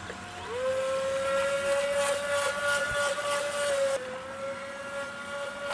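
Model racing boat's water-cooled Viper 700 brushless electric motor and racing propeller running at speed with a steady high whine. About half a second in the whine rises in pitch and gets louder, then it turns quieter from about four seconds in.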